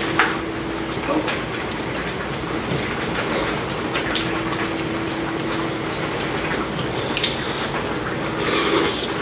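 Hot pot broth bubbling at a steady boil, with a low steady hum that drops out for a while and light clinks of utensils against the pot and dishes.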